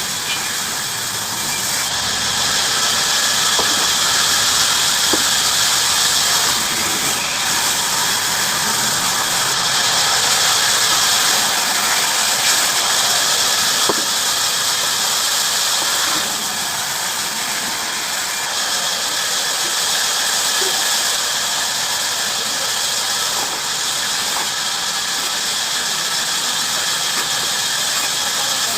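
Bandsaw running steadily through wood, a continuous high hissing rasp from the blade.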